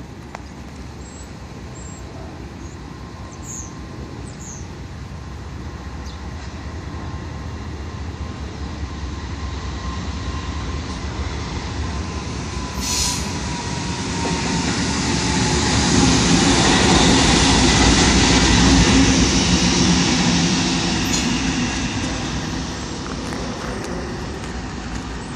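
Two diesel locomotives running light, with no cars behind them, approach and pass: a Norfolk Southern GE Dash 9-40CW leading a Union Pacific unit. Their engine and rail noise builds to a peak as they go by, then falls away. A steady whine drops in pitch as they pass, with one sharp click just before the loudest point.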